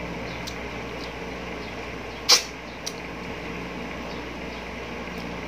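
Eating noises from someone chewing ripe mango flesh: a few faint mouth clicks and one loud, short smack about two seconds in, over a steady low hum.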